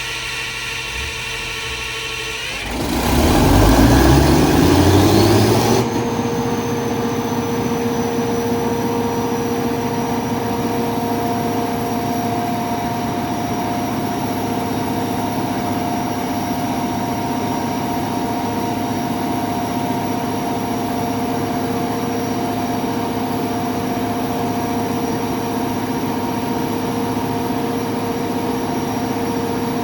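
Cummins QSK50 V16 diesel engine of a 1250 kW generator set being started. After a couple of seconds of steady machine hum, about three seconds in it cranks and fires, a loud burst rising in pitch as it runs up. It then settles into a steady, even run.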